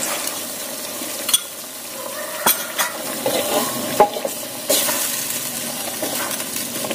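Wooden spatula stirring a vegetable stir-fry in a wok over the heat, with a steady sizzle and a few sharp knocks of the spatula against the pan. Cornstarch slurry has just gone in to thicken the sauce. The sizzle grows louder a little past halfway.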